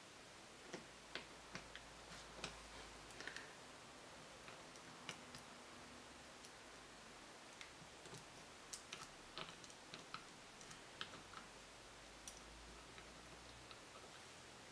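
Faint, irregular light clicks and taps, a dozen or so scattered through, over a steady low hiss: small engine parts and tools being handled during the bearing job.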